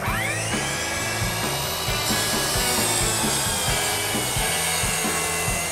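Hitachi 12-inch sliding compound miter saw spinning up with a rising whine, then running steadily as its blade cuts through wood. Background music with a steady beat plays underneath.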